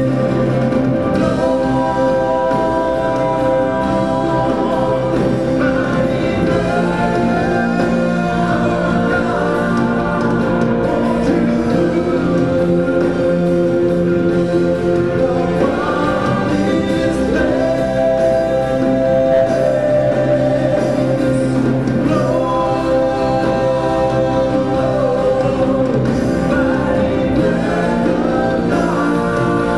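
A contemporary Christian worship song: singing over sustained instrumental backing, playing steadily throughout.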